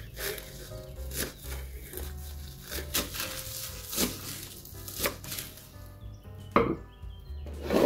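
A kitchen knife chopping green onions on a wooden cutting board, with knocks of the blade on the wood coming irregularly about once a second and a louder knock near the end.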